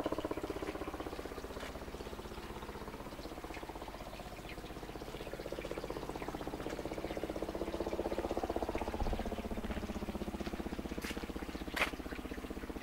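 Water trickling in a stone-lined pool, over a steady low drone that swells about two-thirds of the way in. A single sharp click near the end.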